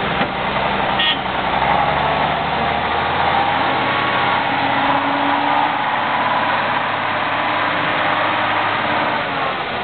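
Saurer M8 eight-wheel truck's engine running under load as the truck climbs a steep grassy slope, its note drifting slowly up and down. A short click about a second in.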